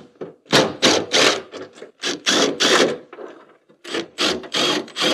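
A hand tool working a loose screw out of the trunk trim: runs of short, noisy strokes about three a second, with a brief break a little past the middle.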